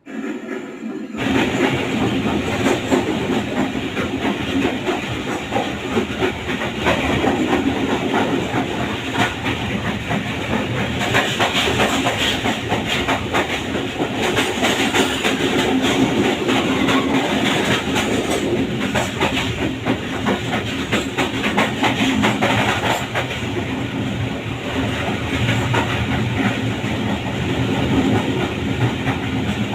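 Moving passenger train: steady running noise of the wheels on the rails with rattling, clattering carriage noise, starting about a second in.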